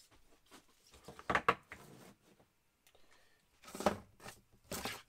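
Rustling and knocking as a hand rummages in a cardboard box of packed fireworks, in short bursts about a second in, near four seconds and just before the end.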